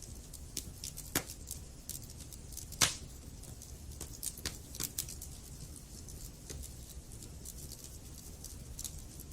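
Wood fire burning in a fireplace and crackling: irregular sharp pops and snaps over a low steady rumble of the flames, with one louder pop about three seconds in.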